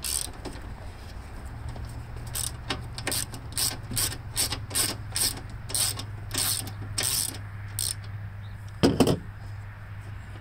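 Ratchet wrench clicking in short strokes, about three clicks a second, as bolts are backed out of a lawn mower's cover, with one louder knock near the end.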